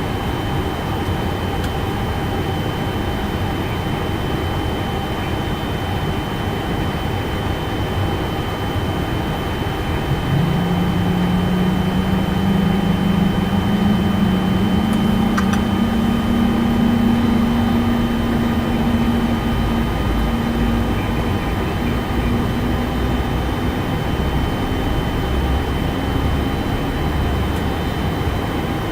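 Boeing 747-400 flight deck hum, with a low drone that comes in about ten seconds in and slowly rises in pitch before fading: a turbofan engine spooling up during engine start.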